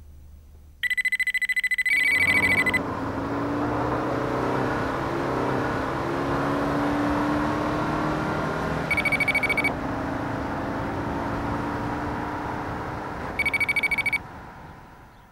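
Sound effects: a trilling electronic ring, like a telephone bell, sounds about a second in, again near nine seconds and near fourteen seconds. Underneath runs a steady vehicle running noise with a low wavering hum, which fades out just before the end.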